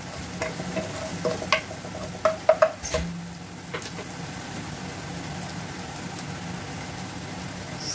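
Chopped onion and garlic sizzling in hot oil in a nonstick pot as they sauté toward golden brown. A wooden spoon stirs and knocks against the pan in the first three seconds, loudest about two and a half seconds in, then the sizzle goes on steadily.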